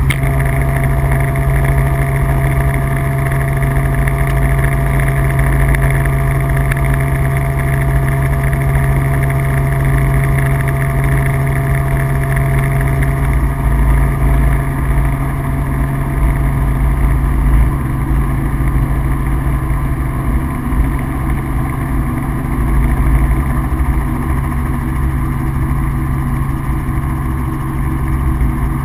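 Helicopter engine and rotors running steadily: a loud, unbroken mechanical drone with a constant low hum.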